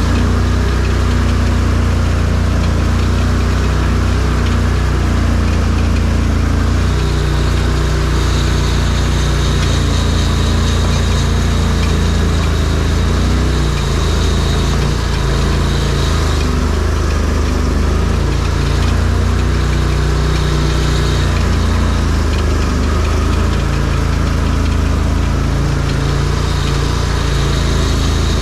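ARGO amphibious off-road vehicle's engine running steadily on the trail, its pitch shifting up and down several times with the throttle. A faint high whine runs through the middle stretch.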